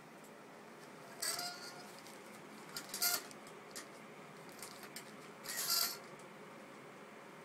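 Metal shower curtain rings clinking and sliding on a metal curtain rod, in three short jingling bursts about two seconds apart.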